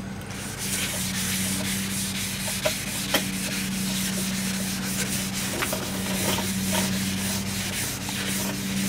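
Wet sanding of fresh automotive paint by hand with the hard side of a sanding block and plain water: steady rubbing of wet abrasive paper over the panel, with a steady low hum underneath. The paint is being cut to knock down spots of guide coat.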